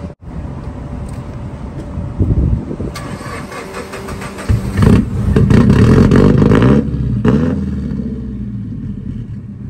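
Tuned sports car engine surging sharply about halfway through, running loud for about two seconds, then easing back down to a lower steady run.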